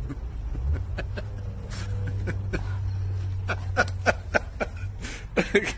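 A man laughing in short bursts, starting past the middle and loudest near the end, over a steady low hum.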